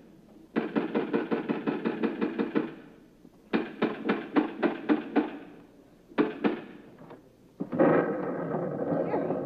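Rapid knocking on a wooden door in several insistent bursts, about eight raps a second, then a louder rushing noise near the end.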